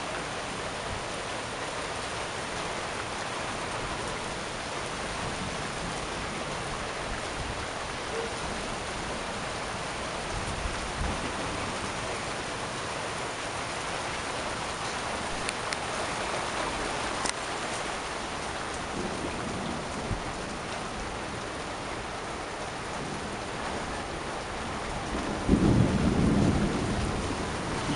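Heavy downpour falling in a steady hiss on pavement and a porch roof. A louder low rumble of thunder comes in near the end.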